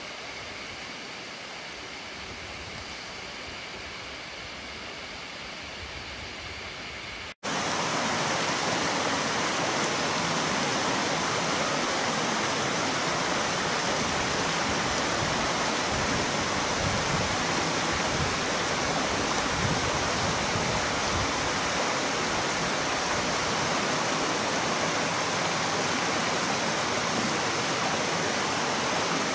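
Steady rush of falling water from a waterfall, soft and distant for about seven seconds, then an abrupt cut to a much louder, closer rush of falling water that holds steady.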